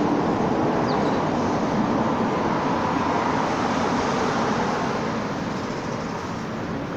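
Steady roar of road traffic, easing off slightly near the end.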